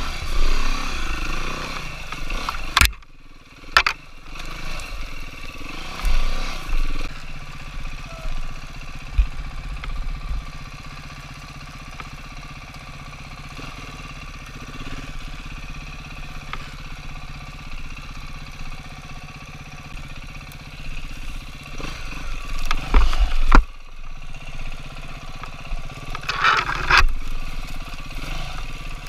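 Enduro dirt bike engine running, mostly at low, steady revs, with louder bursts of throttle in the first few seconds and again near the end. The sound drops out briefly about three seconds in.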